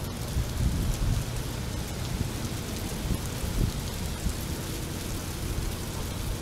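Wind buffeting the microphone outdoors: a steady rushing hiss with an uneven low rumble.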